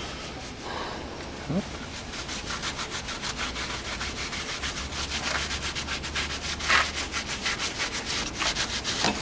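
Cloth rags rubbing wax into a rough bottle brush root piece held on a lathe, buffing out the wax coat by hand. The rubbing comes as a quick, even run of scratchy strokes, several a second, starting about a second and a half in.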